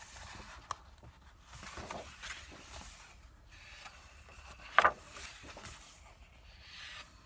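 Paper pages of a colouring book being turned and rubbed by hand, a faint, uneven rustling with a short, sharp sound nearly five seconds in.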